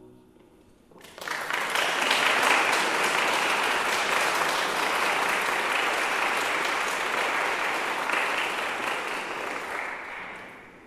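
Audience applauding after a solo piano piece. The last piano chord fades out at the very start, the clapping breaks out about a second in, holds steady, and tapers off near the end.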